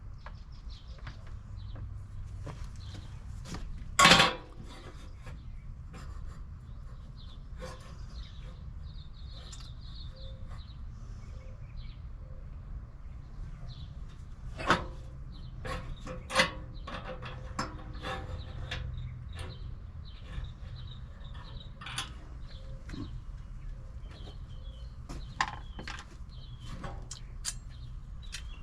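Scattered knocks, clicks and clatter of tools and metal parts being handled, with one sharp bang about four seconds in, over a steady low hum.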